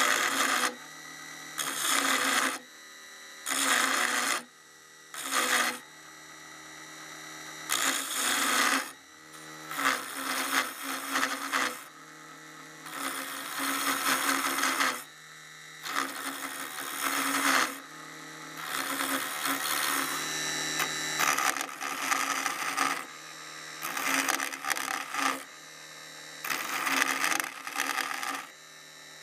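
Mini wood lathe running with a steady motor hum while a hand-held turning chisel cuts a small spinning wooden handle. The cuts come in repeated scraping passes of about one to two seconds each, with short pauses between them.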